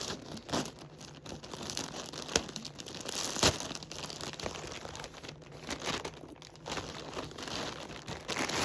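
Packaging being handled and opened: irregular crinkling and tearing of paper or plastic, with a couple of sharp snaps about two and a half and three and a half seconds in.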